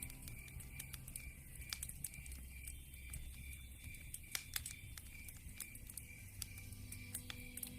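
Wood fire in a fireplace crackling, with many irregular sharp pops and snaps over a low, steady background.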